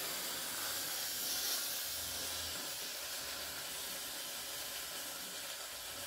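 Pressurised CO2 hissing steadily out of an Umarex HDX 68 less-lethal shotgun's two 12-gram CO2 cartridges as the gun is degassed with its pin held down, easing off slightly as the gas bleeds out.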